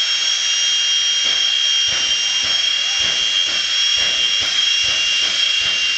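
Jet dragster turbine engines running hard at the start line during a smoke show: a loud, steady high-pitched whine with a rushing hiss, over an irregular low rumbling pulse.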